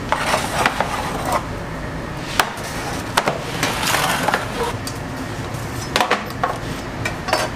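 Metal bread tins and baking trays clattering and knocking, irregular sharp hits about a dozen times, as loaves in their tins are pulled from a deck oven onto a steel bench and tipped out. A steady background noise runs underneath.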